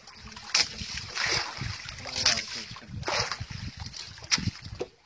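Wet handline being hauled in hand over hand over a small boat's side, with water splashing: short swishing bursts about once a second.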